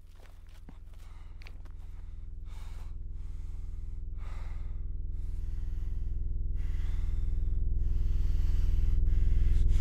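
A low sustained drone from the film's score or sound design, swelling steadily louder, with a few heavy breaths heard over it.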